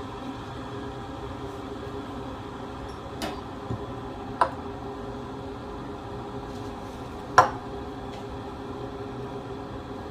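Electric kettle heating water, a steady hum, with three sharp clicks, the loudest near the three-quarter mark.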